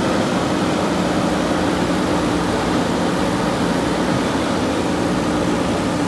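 JCB backhoe loader's diesel engine running steadily under working load, a constant engine note.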